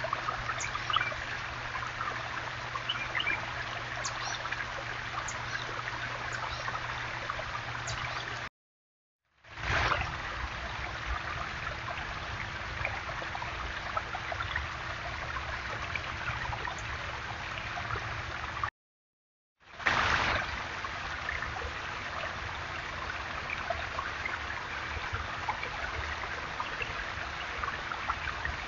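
Water trickling and splashing steadily down a small stacked-stone backyard waterfall. The sound breaks off twice for about a second of silence, and each time it comes back with a brief louder swell.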